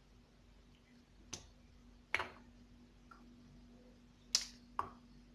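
About five separate sharp clicks and taps of a spoon against spice containers and the pot while ground spices are measured out, over a faint steady hum.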